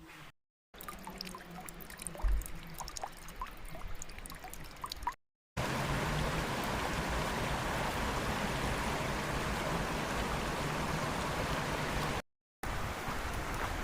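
Flowing stream water, heard in three short clips cut together, with a thump about two seconds in; the middle clip is the loudest, a steady rush of water.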